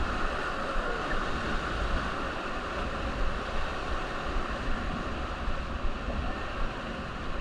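River water rushing and splashing around a paddled raft, a steady noisy wash, with a low wind rumble on the microphone underneath.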